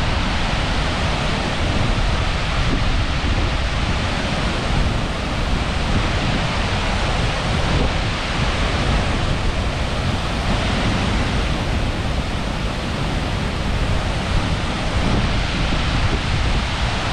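Skógafoss waterfall's steady roar of falling water close to its plunge pool, with wind buffeting the microphone as a rough low rumble.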